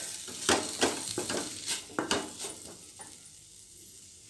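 Wooden spatula scraping and stirring a thick masala of onion, tomato, garlic and chilli powder frying in a stainless steel pot, with a soft sizzle. The strokes come quickly for about three seconds, then stop, leaving only a faint sizzle.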